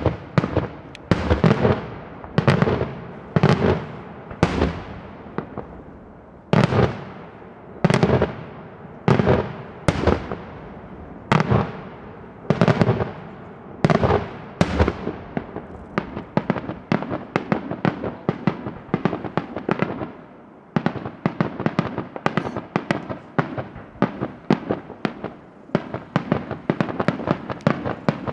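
Daylight fireworks display: loud bangs of bursting shells one after another, about one a second, each trailing off. From about halfway through, a denser run of many quick bangs, several a second.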